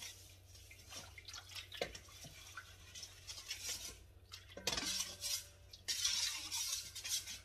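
A utensil stirring rice-flour batter in a bowl, with scraping swishes and light clinks against the bowl, coming in bursts about three, five and six seconds in.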